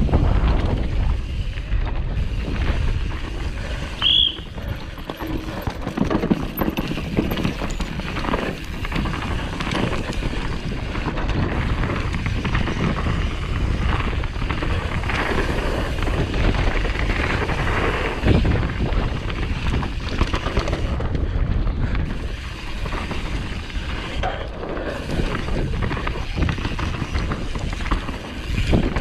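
Downhill mountain bike rattling and clattering over rough, rocky ground at speed, with wind buffeting the camera microphone. A brief high squeak comes about four seconds in.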